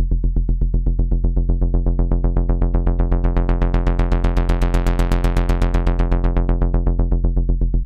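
Serum 2 software synthesizer holding one low, buzzy note that pulses rapidly and evenly, several times a second. Its tone grows brighter toward the middle and duller again near the end as the mod wheel is pushed up and brought back down.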